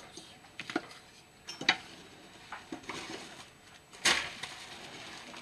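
Kitchen clatter of dishes and utensils: scattered light clicks and knocks, with one louder clatter about four seconds in.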